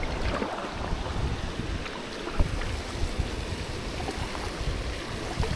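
Wind rumbling on the microphone over water sounds around a fishing kayak, with a few faint ticks.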